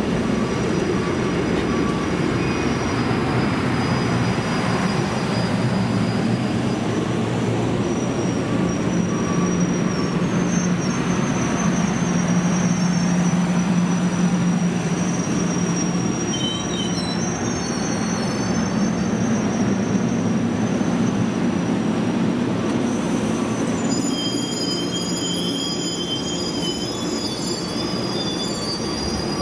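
A passing train's steel wheels squealing on the rails in thin, high, wavering tones, over the steady rumble of the cars rolling by. The squeal grows more prominent near the end.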